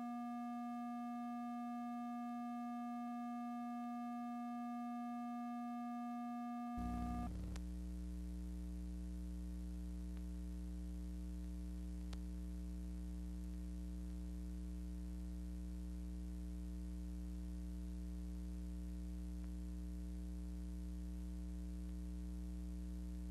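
A steady electronic tone with overtones. About seven seconds in it changes to a lower steady hum with many overtones. The silent film carries no engine sound.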